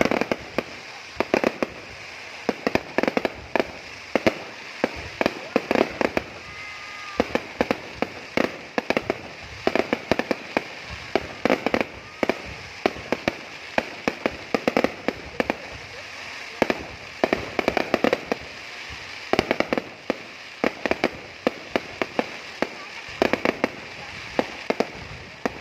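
Fireworks display: aerial shells bursting in a continuous, irregular stream of sharp bangs and crackles, several a second, over a steady hiss.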